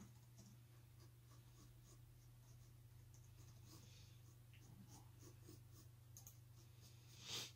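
Near silence with a low steady electrical hum and faint, irregular clicking from a computer keyboard and mouse in use. A brief louder rustle comes near the end.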